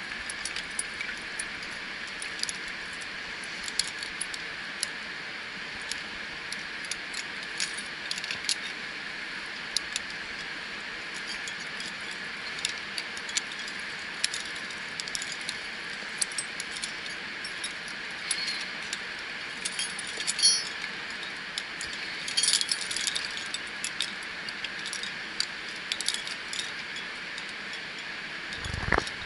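Carabiners, cams and other metal climbing hardware racked on a harness clinking and jangling irregularly as the climber moves on the rope, over a steady hiss. A single knock comes near the end.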